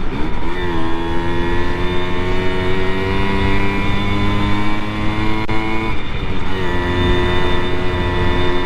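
Simson single-cylinder two-stroke moped engine running under way, its pitch climbing slowly as it pulls. About six seconds in it drops out briefly as it shifts up, then runs on steadily at a lower pitch, with wind rumbling on the helmet microphone.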